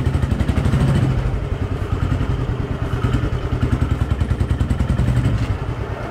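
Royal Enfield Thunderbird 350's single-cylinder four-stroke engine running at low revs as the bike rolls slowly, with a steady, quick thumping beat that eases a little near the end.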